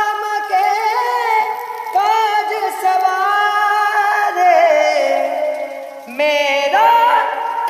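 A high solo voice singing a devotional bhajan to Hanuman in long held notes, with wavering ornaments and slides between pitches. The singing breaks off briefly about six seconds in, then comes back higher.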